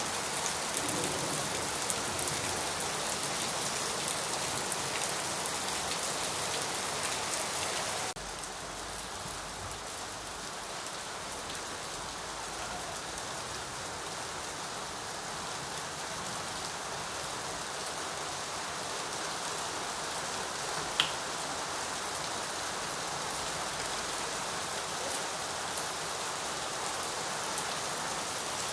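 Steady rain falling, an even hiss of drops. About a third of the way in it suddenly drops to a softer, duller rain, and a single sharp tick stands out about two-thirds of the way through.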